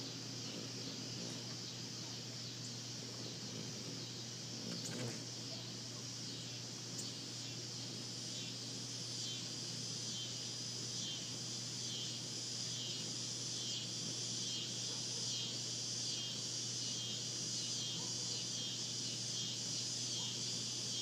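Steady outdoor insect chorus, a high shrill drone that pulses about one and a half times a second, over a constant low hum.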